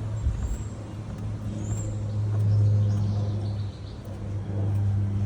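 A low, steady motor hum that swells and fades, with a couple of faint high bird chirps in the first two seconds.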